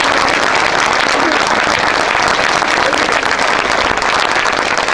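Crowd applause: many hands clapping in a dense, steady patter.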